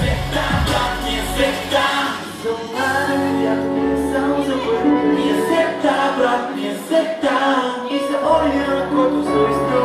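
Pop song performed with singing into microphones over a musical backing; the deep bass drops out about a second and a half in and comes back in and out every few seconds.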